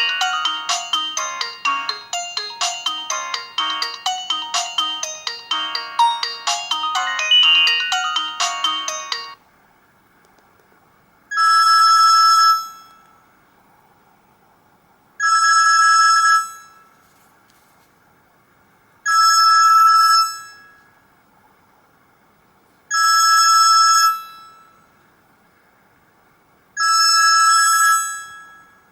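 Alcatel 2000X ringtones played on a Samsung GT-B2710 mobile phone. A fast multi-note melody stops abruptly about nine seconds in. After a short pause, a telephone-style two-tone ring sounds in bursts of just over a second, five times, about every four seconds.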